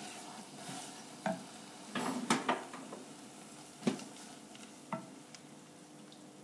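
Wooden spoon stirring thick, sticky cooked onions in a saucepan, with a handful of light knocks of the spoon against the pan. The stirring stops near the end.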